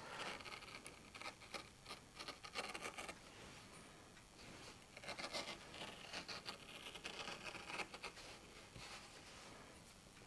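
Hand-turned circle cutter's blade scraping round through thick, dense felt, a faint irregular scratching in two spells of strokes.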